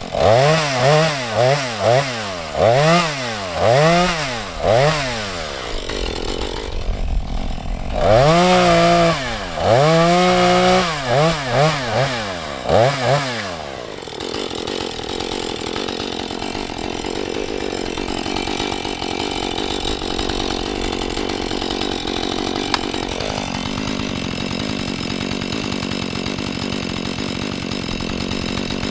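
Husqvarna 435 two-stroke chainsaw revved up and down in quick repeated bursts for the first half, with a short lull partway through, then running steadily, dropping a little in pitch about 23 s in.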